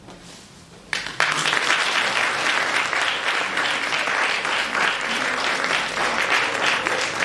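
Audience applauding, starting suddenly about a second in and continuing steadily.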